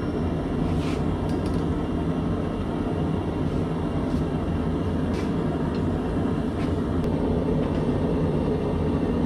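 Steady roar of a gas forge burner running, with a few faint clicks.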